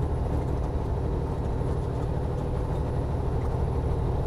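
Semi truck's diesel engine pulling steadily under load up a steep grade, heard from inside the cab as a constant low drone.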